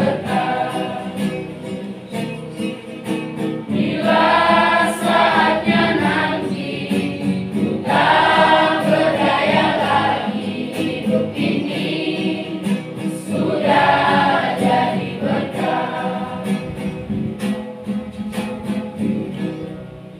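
Children's and youth church choir singing a gospel song together, the voices swelling louder about four, eight and fourteen seconds in, then fading out near the end.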